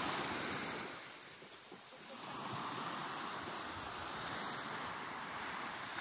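Sea waves washing along the shore with wind on the microphone, easing briefly about a second in and then steady.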